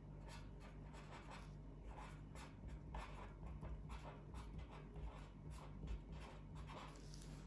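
Handwriting on paper: faint scratching of a writing tip in many short, uneven strokes.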